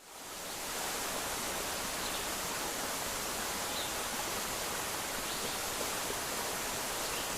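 Steady hiss, even from low to high pitches, fading in over the first half second and then holding constant.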